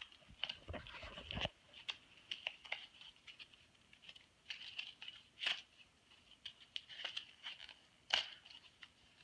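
A card-backed lip gloss package being torn and crinkled open by hand: a run of irregular crackles and small rips, with sharper snaps about five and a half and eight seconds in.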